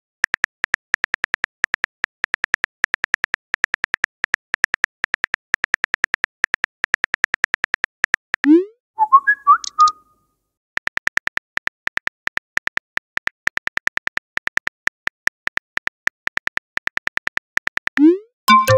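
Rapid tapping clicks of a texting app's simulated phone keyboard. About halfway through, the clicks break for a short rising swoosh and a few quick chime notes as a message is sent and answered. The tapping then resumes and ends with another swoosh and chime near the end.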